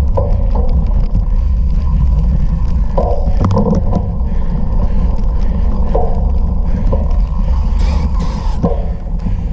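Wind rumbling over the microphone of a camera carried on a moving off-road bicycle, with the bike rattling in irregular short knocks over rough ground and a brief hiss about eight seconds in.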